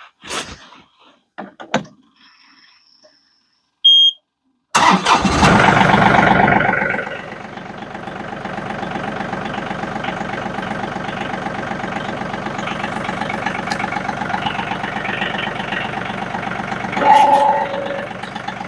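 An engine starting about five seconds in, running fast at first and then settling into a steady idle, with a brief rise in revs near the end. A few small clicks come first, then a short beep just before the start.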